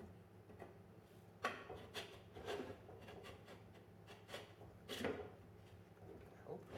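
Faint knocks and clicks as the end cap is pushed onto an electric motor's housing and the motor is handled on a wooden workbench: about six separate taps, the sharpest about one and a half and five seconds in.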